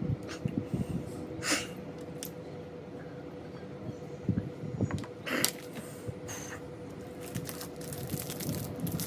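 Close-up eating and handling sounds: small clicks, sips and mouth sounds, then the crackling rustle of a Cadbury Dairy Milk wrapper being torn open near the end, over a faint steady hum.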